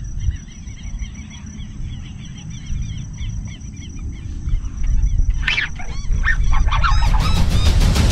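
Animal calls: small chirps repeating about three or four times a second over a low rumble, with louder, harsher calls joining about five seconds in.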